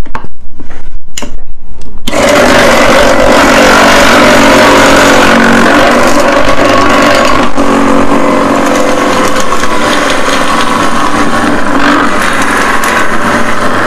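Electric shaved-ice machine starting about two seconds in and running steadily, its motor humming as the blade grinds a block of ice into fluffy shaved ice under the pressed-down lever.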